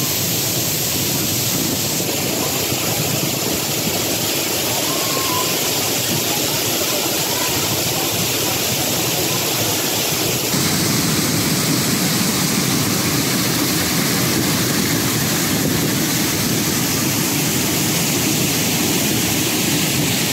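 Waterfall and water pouring through a low weir below it: a steady rush of falling water, turning fuller and a little louder about halfway through.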